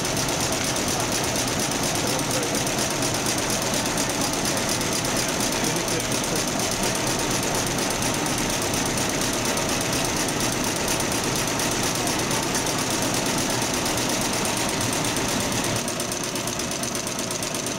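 Multi-needle commercial embroidery machine stitching at speed: a steady, rapid needle chatter. It drops a little in level near the end.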